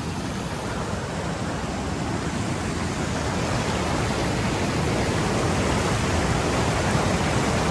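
Rushing mountain stream: a steady wash of water noise that grows slightly louder.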